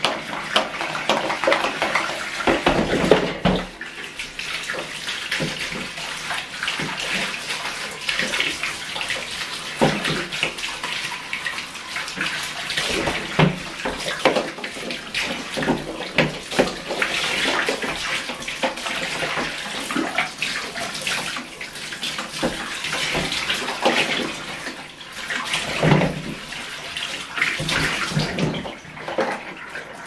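Bath tap running and water splashing in a bathtub as plastic vacuum cleaner parts are rinsed and scrubbed, with repeated knocks of hard plastic parts against each other and the tub.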